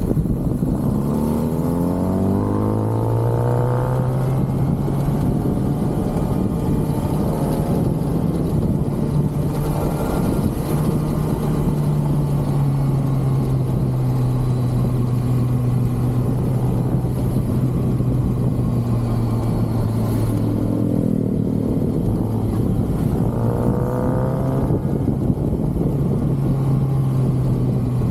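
Stock 2023 Kawasaki ZX-6R's 636 cc inline-four on the move. Revs climb at the start, then hold steady at cruise. About two-thirds of the way through the revs drop, then climb again.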